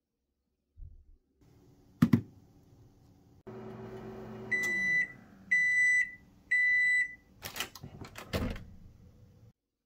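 Microwave oven running with a hum that winds down, then three long beeps about a second apart signalling the end of the cycle, followed by a few clicks as the door is opened.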